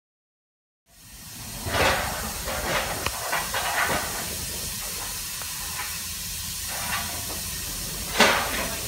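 Steam hissing steadily from a standing GWR 1600 class pannier tank locomotive, fading in about a second in. Several louder gusts come through, and the loudest is near the end.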